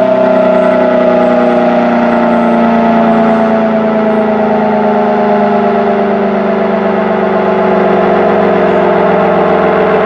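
ACA Allertor 125 rotating electromechanical warning siren sounding loudly, its head turning. Its tone slides slowly down in pitch through the whole stretch as the siren begins to wind down.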